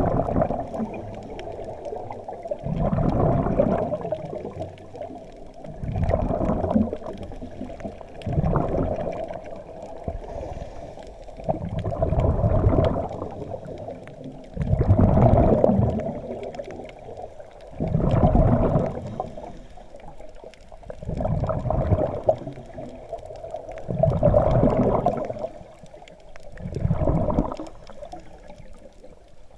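Scuba diver breathing underwater through a regulator: bursts of exhaled bubbles gurgle out about every three seconds over a steady hum.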